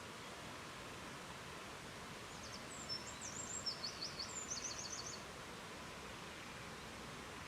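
Steady rushing of river water, with a small bird singing a short phrase of quick, high repeated notes that starts about two and a half seconds in and lasts about two and a half seconds.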